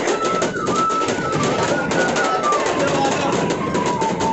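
Bamboo flute (bansuri) playing a melody of held, stepping notes that drift lower near the end, over a rhythmic beat.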